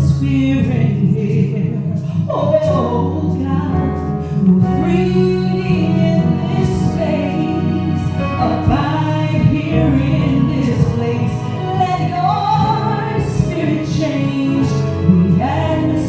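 A woman singing a slow gospel song into a microphone over instrumental accompaniment, her voice holding and bending long notes over steady chords.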